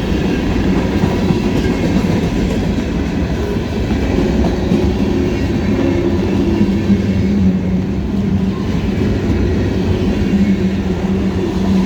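Freight train of hopper cars rolling past at close range: a continuous loud rumble of steel wheels on rail, with some clickety-clack and a steady low hum.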